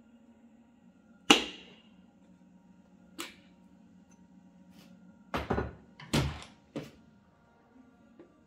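Sharp metal knocks and clatter of tools and engine parts being handled during piston and connecting-rod installation. The first knock, about a second in, is the loudest and rings briefly; a quick cluster of several knocks follows past the middle.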